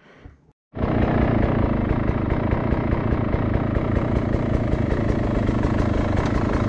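Beta 300 two-stroke dirt bike engine running steadily at low revs, cutting in suddenly under a second in.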